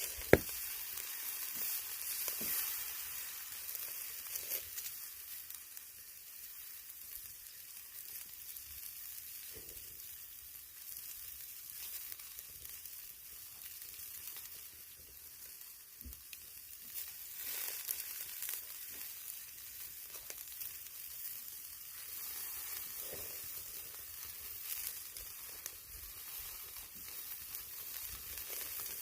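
Pork belly sizzling on a grill over charcoal: a steady high hiss of fat cooking, with scattered small pops and one sharp click just after the start.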